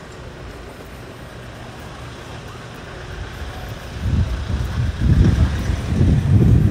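City street traffic noise, steady and moderate at first, then a loud, uneven low rumble from about four seconds in.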